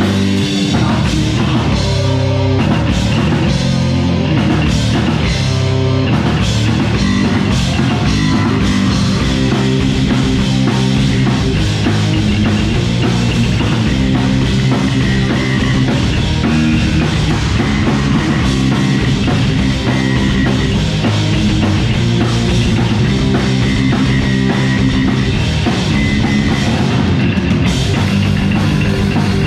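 A metal band playing live: electric guitars, bass guitar and a drum kit, loud and continuous.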